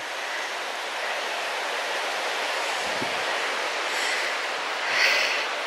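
Steady rushing of river water flowing below the path, with a brief louder burst of noise about five seconds in.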